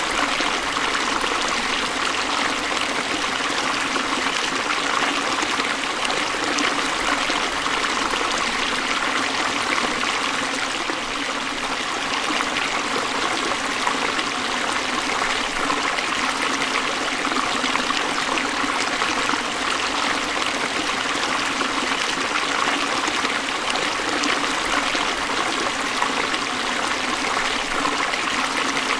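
A forest stream flowing and trickling over rocks: a steady, unbroken rush of water.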